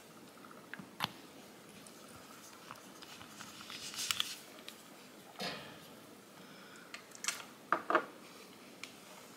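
Small clicks and taps of a nail polish bottle and its brush cap being handled, closed and set down, over faint room hiss; the sharpest clicks come near the end.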